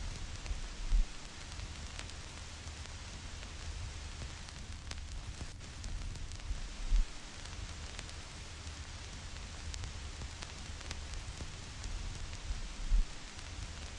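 Vinyl record surface noise: a steady hiss with scattered fine crackles and pops of a stylus riding dusty grooves, layered with white noise. A low thump recurs about every six seconds and is the loudest sound.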